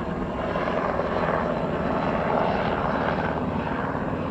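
Helicopter flying, a steady drone of rotor and engine.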